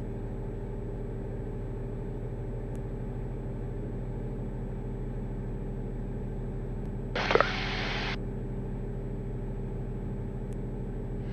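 Steady drone of the Diamond DA50 RG's 300-horsepower water-cooled turbodiesel engine and propeller at takeoff power in the initial climb.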